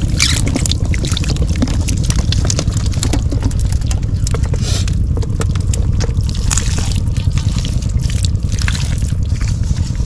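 Water splashing and trickling in irregular bursts, over a steady low rumble.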